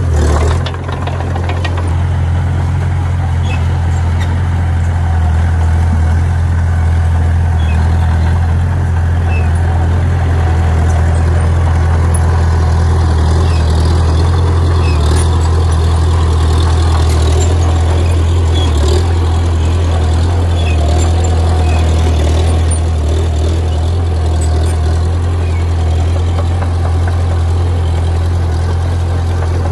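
Heavy diesel engine of earthmoving machinery running steadily with a deep, even hum. A short knock comes at the very start.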